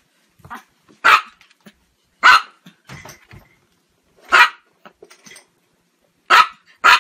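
A Chihuahua barking: about five short, sharp barks a second or two apart, the last two in quick succession near the end.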